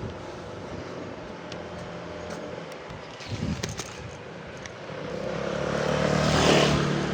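Street traffic rumbling steadily, with a short louder burst about three and a half seconds in. Then a motor vehicle approaches and passes close by, loudest about six and a half seconds in before fading.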